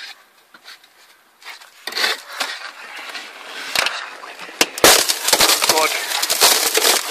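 Car windscreen cracking under the weight of an elephant leaning on the glass. Sharp cracks come a little past halfway, followed by dense crackling and crunching.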